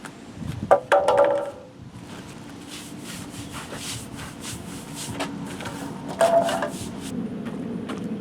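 Hand trowel scraping and spreading wet cement mix over a concrete surface in a series of short strokes, with a sharp knock that rings briefly about a second in and another about six seconds in.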